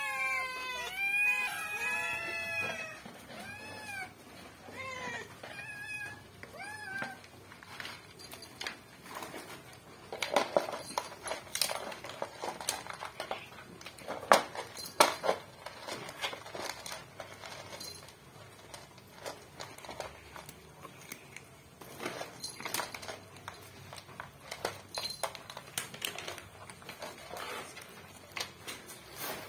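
Two cats, a tabby kitten and a black-and-white cat, meowing in a quick run of rising-and-falling calls for about the first seven seconds. Then only the cats eating dry kibble from a plastic double bowl: scattered crunches and sharp clicks, the loudest a few seconds after the middle.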